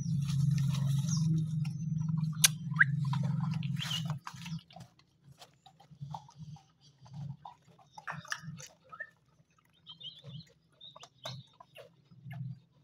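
A white spitz-type dog on a chain making a loud, steady low sound for about four seconds, then softer short sounds about once a second. Scattered light clicks and a few high chirps come through in between.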